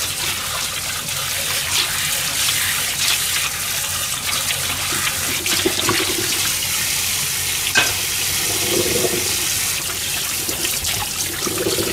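Tap water running into a stainless-steel sink while a frying pan and plate are scrubbed with a sponge under the stream. There is a sharp clink of dishware about eight seconds in.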